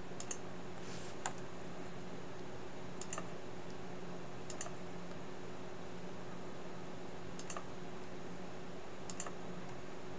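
Computer mouse button clicks, a few sharp press-and-release pairs a second or two apart, placing points while drawing shapes freehand in PCB design software. A faint steady low hum lies under them.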